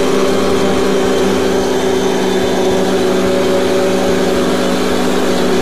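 Riding lawn mower's engine running steadily at a constant speed while the mower drives and cuts grass.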